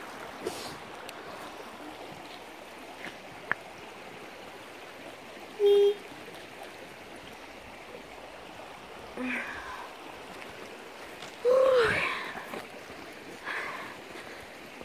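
Shallow stream running steadily over stones, with two short, loud pitched sounds: a steady tone about six seconds in and a rising-then-falling one near twelve seconds.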